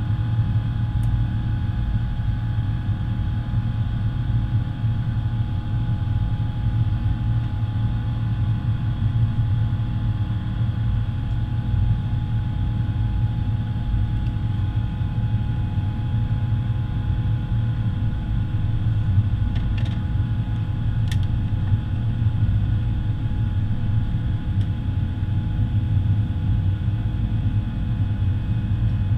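Steady low rumble inside the cabin of an Airbus A350 climbing out after takeoff: its Rolls-Royce Trent XWB turbofan at climb power and the air rushing past the fuselage, with a few faint steady whining tones over it. Two faint clicks come about twenty seconds in.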